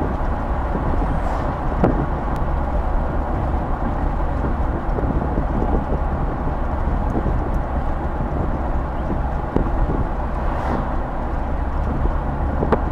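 Steady road noise inside a car cabin while driving at about 45 mph: a low, even rumble of tyres, engine and wind.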